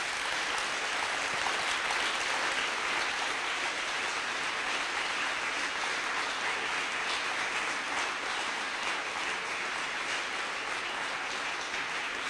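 A large seated audience applauding steadily. The clapping cuts off abruptly at the very end.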